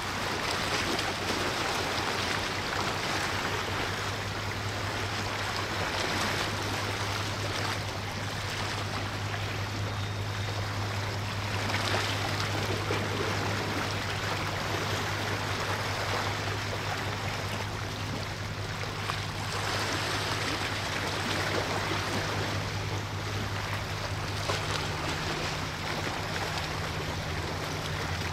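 Steady rush of water from a passing ship's wash, with a low, steady engine hum underneath.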